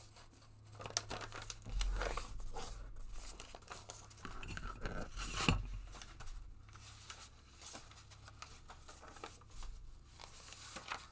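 Sheets of paper rustling and crinkling as they are handled, shuffled and folded together, with irregular crackles and a louder rustle about five seconds in.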